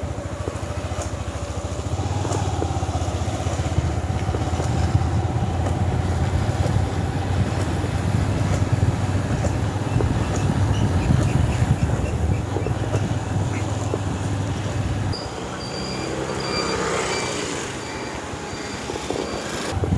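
Motorcycle engine running steadily while riding along a road. The engine sound eases about three-quarters of the way through.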